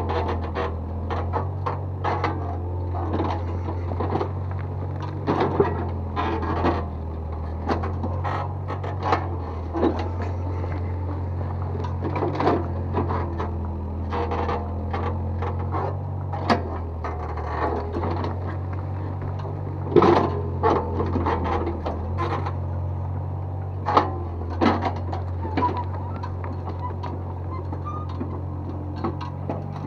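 Excavator's diesel engine running steadily, its note stepping up and down every few seconds, with frequent sharp clanks and scrapes of the bucket working soil and rubble.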